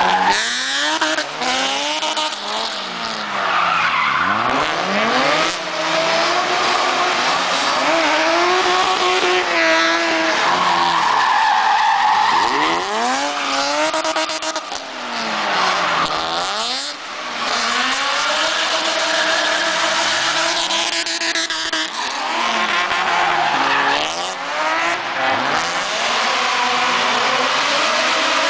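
Drift car's engine revving hard, its pitch climbing and dropping again and again, over the screech of its tyres sliding sideways through the corners.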